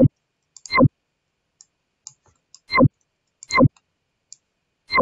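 Computer mouse clicking: five loud, sharp clicks at uneven gaps, with fainter small ticks between them.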